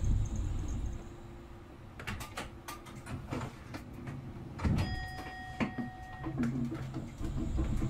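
A series of sharp clicks and knocks, then a steady electronic beep lasting about a second and a half.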